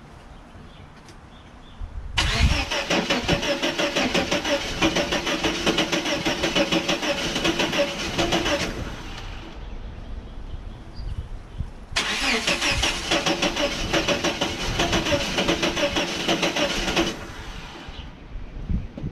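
1989 Chevrolet S10 Blazer engine being cranked by its starter in two long attempts of about six and five seconds, turning over rhythmically but never catching: a no-start.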